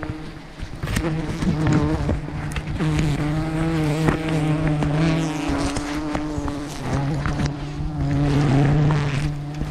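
A swarm of giant honeybees buzzing close around the microphone in a steady hum that wavers a little in pitch, with knocks and rubbing from gloved hands brushing against the camera.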